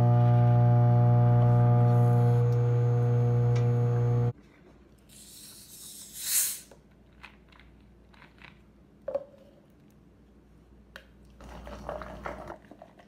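Microwave oven running with a loud, steady electrical hum, cut off abruptly about four seconds in. Then a carbonated soda bottle is opened with a hiss of escaping gas, followed by a few light clicks and a short spell of soda being poured into a plastic cup near the end.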